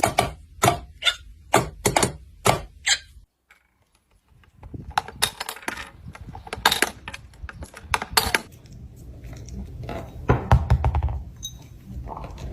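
A run of sharp clicks and taps, hard little knocks at an uneven pace. They stop for about a second about three seconds in, then go on over a low rumble.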